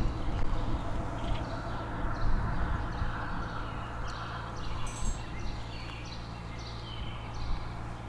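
Small birds chirping in short repeated calls over a low steady rumble.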